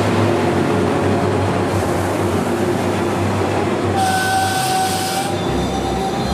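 Trinity Railway Express diesel commuter train standing with its engine running: a steady rumble and hiss. About four seconds in, a steady high tone sounds for just over a second.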